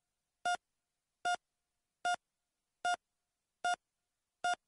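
A series of short electronic beeps, all at the same mid pitch, evenly spaced about 0.8 seconds apart, six in all, with silence between them.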